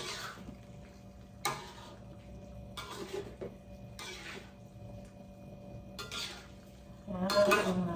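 A pot of soup being stirred: a utensil scraping and clinking against the pot every second or two.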